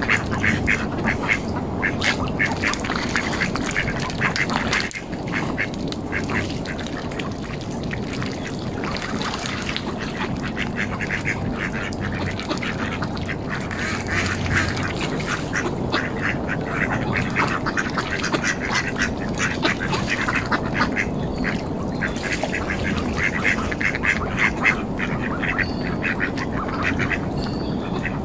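Mallard ducks quacking in quick runs of short calls that come and go, over a steady background hiss.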